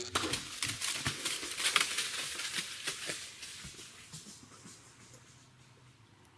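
Whitetail deer running off through dry fallen leaves: a fast run of crunching, rustling footfalls that follows a sharp crack at the very start and fades away over about four seconds.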